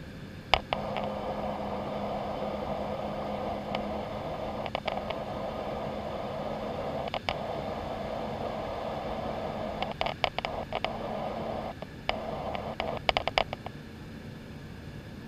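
Airliner cabin in flight: a steady jet-engine drone with a low hum. A rustling noise rises over it from about a second in until near the end, with scattered sharp clicks and taps, several in quick clusters.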